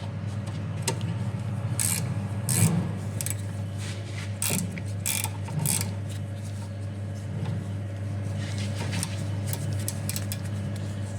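Metal spanner clicking and scraping on the rear brake caliper's guide bolts as they are worked loose, with the clicks coming thickest in the first half, over a steady low hum.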